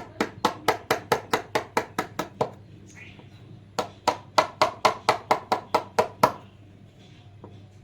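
Hammering on wood, quick even blows about four a second, in two runs with a pause of about a second and a half between them.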